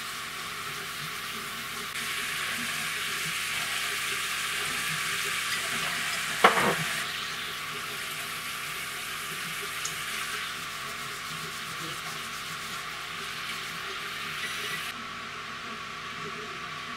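Red wine sauce sizzling as it reduces in a frying pan on an induction hob, stirred with a spoon, with one sharp knock about six and a half seconds in. The sizzle drops near the end as the pan is lifted off the heat to pour.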